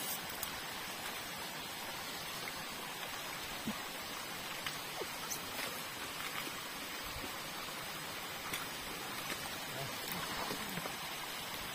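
Steady rush of running stream water, with a few faint clicks and snaps.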